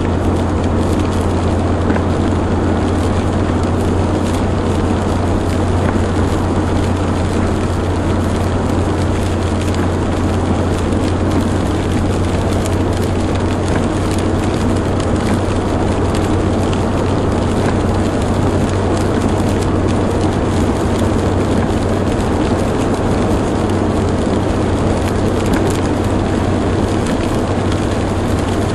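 Ford Crown Victoria cruising on a wet highway, heard from inside the cabin: a steady low engine and drivetrain drone under the hiss of tyres on rain-soaked pavement.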